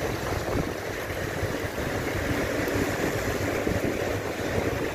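Surf breaking and washing up the beach, a steady rushing noise, with wind buffeting the microphone.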